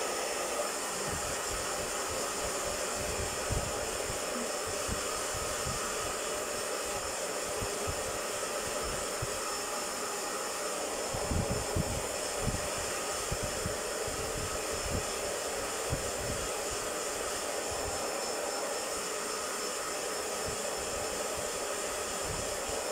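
Handheld hair dryer running steadily as it dries a wet Chihuahua puppy's coat, with scattered low thumps, a cluster of them about halfway through.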